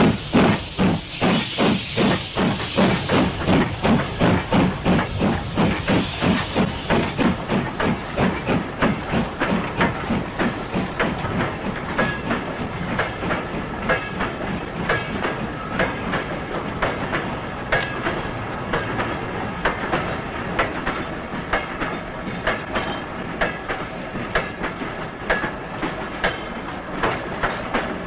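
Steam locomotive hauling a freight train, its exhaust chuffing in a steady rhythm with steam hiss, about two beats a second. After about ten seconds the chuffs fade and the clicking of the freight wagons' wheels over the rail joints takes over as the wagons roll past.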